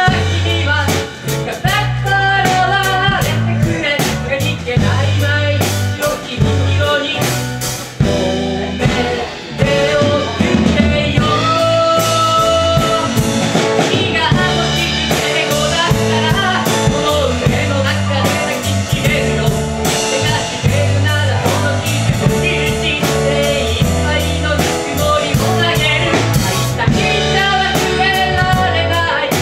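Live band playing a ballad: acoustic and electric guitars, keyboard and a drum kit keeping a steady beat, with a sung melody over them and one long held note about twelve seconds in.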